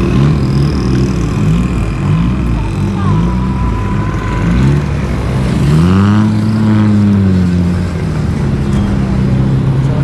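Motor vehicle engines in road traffic. A series of short rises and falls in engine pitch gives way, about six seconds in, to one engine rising and falling in pitch, then a steady engine hum.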